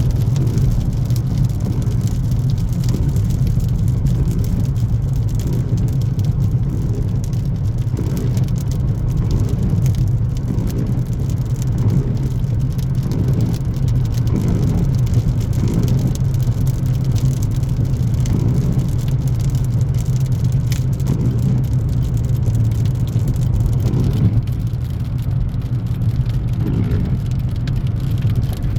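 Steady engine and tyre noise of a car driving at highway speed, heard from inside the cabin.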